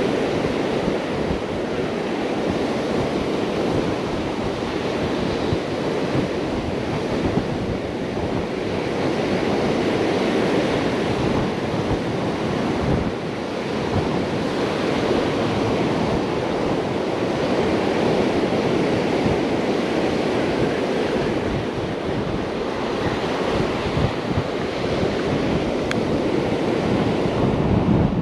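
Ocean surf breaking and washing up the beach in a steady, continuous rush, with wind buffeting the microphone.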